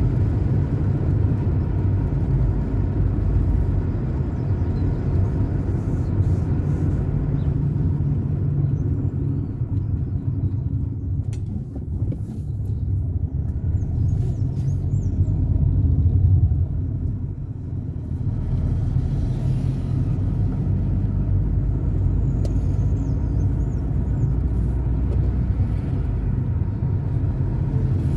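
Car driving through city streets: a steady low rumble of engine and road noise, easing off briefly a couple of times.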